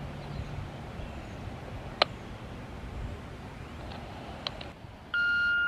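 Faint background hiss with a sharp click about two seconds in. Near the end a scanner radio starts a loud steady beep, the first tone of a two-tone paging sequence of the kind used to set off the tornado siren.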